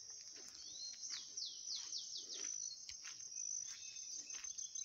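Forest ambience: a steady high-pitched insect drone, with a bird singing a quick run of about six falling whistled notes about a second in.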